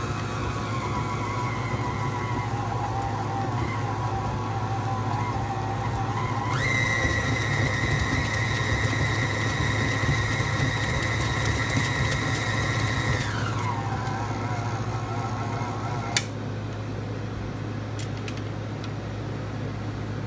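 KitchenAid stand mixer's motor running as it beats thick batter, its whine jumping higher as the speed is turned up about a third of the way in and dropping back about halfway through. It stops with a click near the end.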